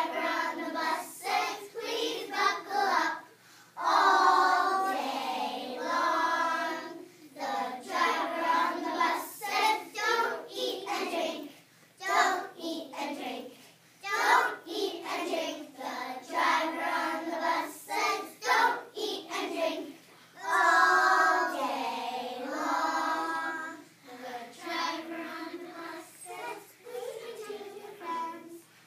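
A group of young children singing a song together in unison, in phrases of held notes with short breaks between them.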